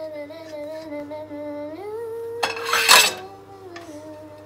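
Spatula scraping and clattering against a frying pan once, loudly, for under a second about two and a half seconds in, over a voice humming a few long, slowly wavering notes.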